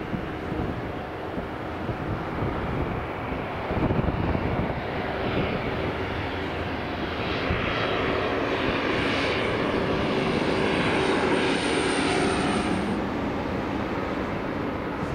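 Twin-engine turboprop airliner on approach with its landing gear down, flying low overhead: a steady propeller drone with a thin high turbine whine that builds from about halfway, loudest near the end, then eases off.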